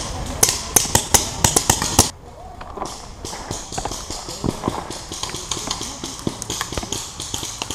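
Paintball markers firing: a rapid string of sharp pops, about five a second, that stops abruptly about two seconds in, followed by scattered quieter pops.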